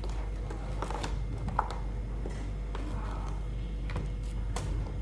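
Scattered light clicks and knocks of things being handled on a kitchen counter, over a steady low hum.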